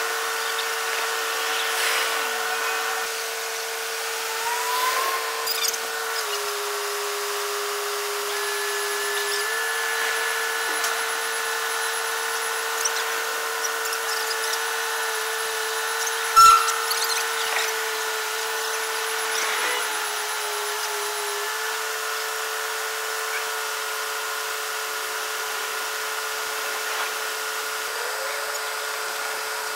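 Crawler crane's engine and hydraulics running with a steady high whine that drops a little in pitch for about three seconds and then returns. A single sharp knock sounds about halfway through.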